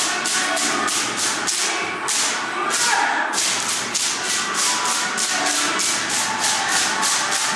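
Music with a fast, steady percussive beat, about four sharp hits a second.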